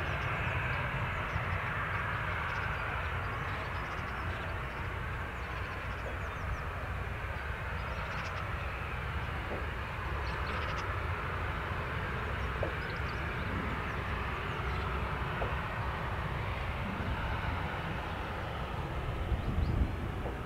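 The CFM56 jet engines of a Ryanair Boeing 737-800 on arrival, heard as a steady, even rumble with a broad hiss above it.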